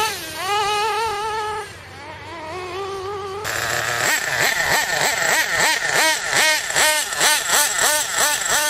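Nitro RC buggy's 3.5 cc (.21) two-stroke glow engine running at high revs. It fades just under two seconds in, then grows louder again. From about four seconds in it revs up and down in quick throttle blips, about three a second.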